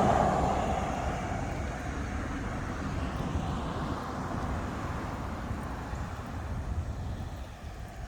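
A passing vehicle's noise, loudest at the start and fading away over the next few seconds, over a steady low outdoor rumble.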